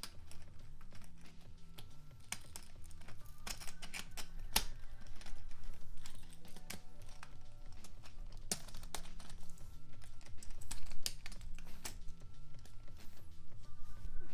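Irregular light clicks and clacks of a copper bus bar, a battery switch and plastic fuse-holder bases being handled and fitted together on a tabletop, over background music.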